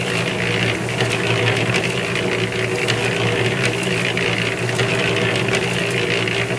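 Harbor Freight concrete mixer running: a steady motor hum under the irregular clatter of the mix in the turning drum.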